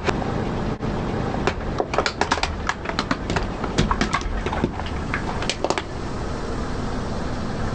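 Crunchy objects cracking and snapping under a slowly rolling car tyre: a dense run of irregular sharp cracks over a low rumble, thinning out about six seconds in.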